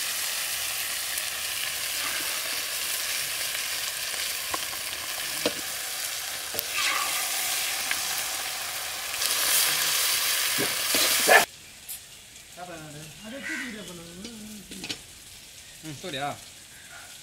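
Onions, curry leaves, dried red chillies and ginger-garlic paste sizzling in hot oil in a kadai, stirred with a ladle that scrapes the pan now and then. The sizzling cuts off suddenly about eleven seconds in, leaving a much quieter stretch with a few faint calls.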